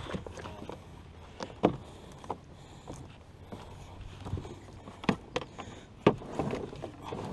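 Canoe and wooden paddle knocking and scraping against a plastic floating dock as the canoe is pushed off, with several sharp, hollow knocks spread through the clip, the loudest about two seconds in and about six seconds in.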